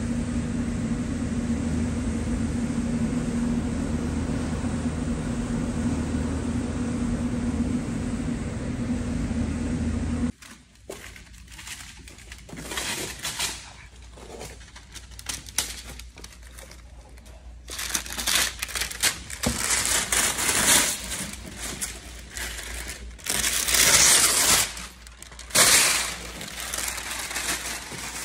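A blower hums steadily for about ten seconds, the extraction of the mobile spray booth, then cuts off abruptly. After that, masking paper and tape are peeled off a car's freshly painted fender and crumpled, an irregular crinkling and tearing that comes in louder surges near the end.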